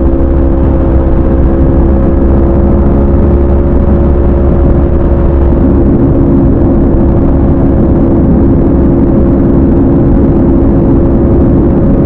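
Aprilia RSV4 RF's V4 engine through an SC Project CRT exhaust with the catalytic converter removed, running loud at a steady cruise. Its pitch holds level, with no revving up or down.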